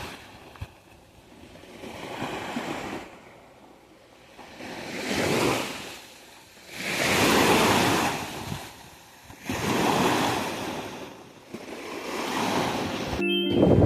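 Sea surf: waves breaking and washing up the beach, swelling and fading about five times, every two to three seconds.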